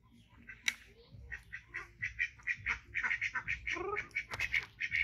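Rapid series of short, high chirping calls from an animal, about four a second, with one longer rising call near four seconds in. A sharp click sounds just under a second in.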